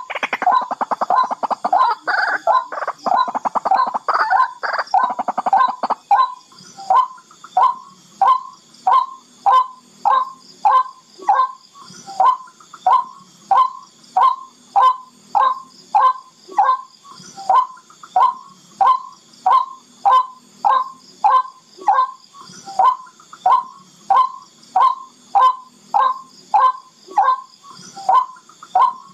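Barred rail (tikling) calling, played as a lure call: a fast, crowded run of notes for the first few seconds, then a steady series of short single notes at about one and a half a second.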